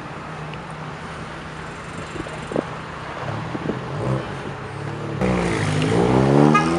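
Car engine running steadily under road noise while driving. Just after five seconds a louder engine note swells, its pitch sweeping down and up again as it revs.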